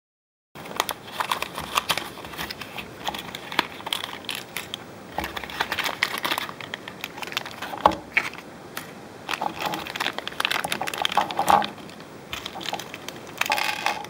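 Hands opening a small cardboard box and crinkling small plastic packaging bags while unpacking a push-lock latch, with scattered clicks and taps of small hardware set down on a tabletop.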